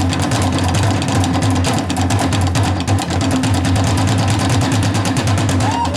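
Korean traditional percussion ensemble with buk drums playing a fast, dense rolling rhythm of rapid, even strokes. A sliding pitched melody line comes in near the end.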